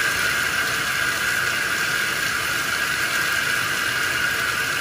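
Bathtub faucet running, water pouring steadily into the tub with the drain stopper closed, as a little water is run in to test a newly installed tub drain for leaks.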